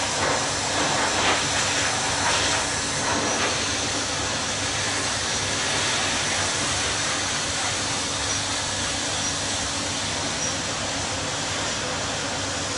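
Hot-water pressure washer running steadily: an even hiss of the spray jet over a low machine hum.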